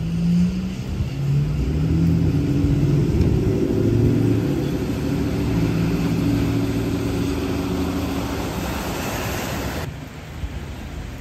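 Motor vehicle traffic passing on a rain-wet street: an engine hum that swells and fades over the hiss of tyres on the wet road. The sound drops off abruptly about ten seconds in.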